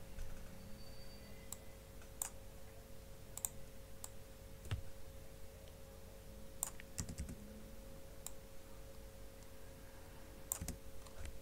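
Sparse computer keyboard and mouse clicks, single keystrokes spaced a second or two apart, over a faint steady hum.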